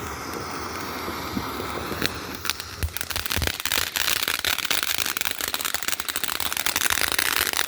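Consumer fireworks going off: a hissing fizz at first, a few separate pops about two to three seconds in, then a dense, fast crackling.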